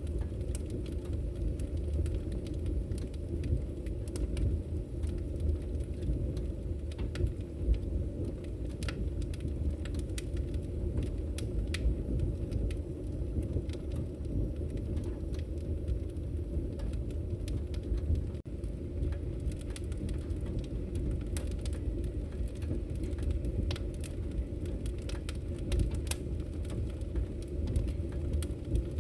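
Campfire crackling: a steady low rush of burning wood with frequent sharp pops and snaps scattered irregularly throughout.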